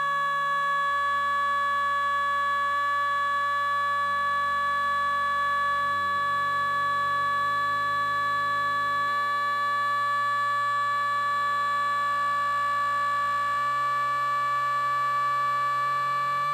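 Electronic synthesizer music: several high, siren-like steady tones held throughout over a low line of notes that changes every second or two.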